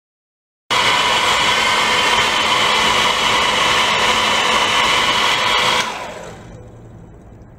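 A high-pitched whirring motor that cuts in abruptly and runs steadily, then winds down and fades about five seconds in.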